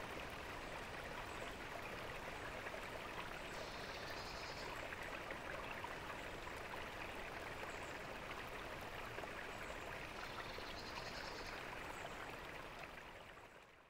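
Tiered garden fountain's water splashing steadily into its basin, with a short high trill sounding twice over it. The water sound fades out near the end.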